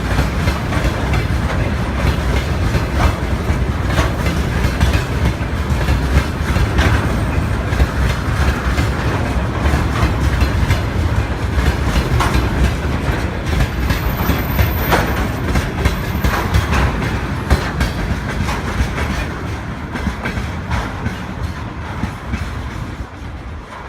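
Freight train wagons rolling past, with a steady rumble and irregular clacks and knocks from the wheels on the rails. The sound dies away over the last few seconds.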